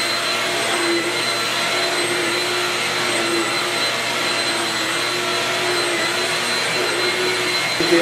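Shark Rocket UV450 upright stick vacuum running steadily on its high-pile carpet setting while its floor head is pushed back and forth over carpet. A constant motor whine with a steady high tone over the rush of suction.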